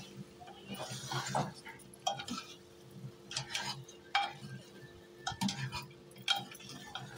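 A ladle stirring thick masala and meat pieces in an aluminium pressure cooker, with irregular clinks and scrapes as it knocks against the pot's side and bottom.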